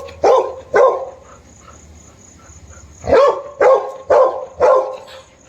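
Pet dog barking: two sharp barks at the start, then four more in quick succession about three seconds in.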